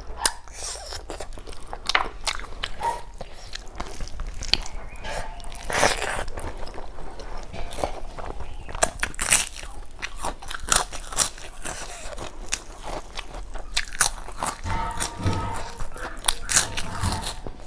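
Eating sounds: chewing snail curry eaten by hand, then a crisp puffed rice cracker broken off and bitten, with many sharp crunches and crackles.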